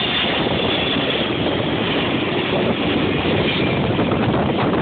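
Twin-engine widebody jet airliner passing low overhead on final approach, its engines a loud steady rumble. A high fan whine fades out about three and a half seconds in.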